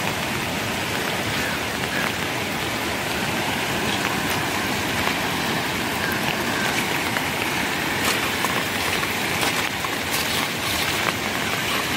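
Steady rushing of a swollen, muddy river in flood, with rain falling. A few faint ticks in the second half.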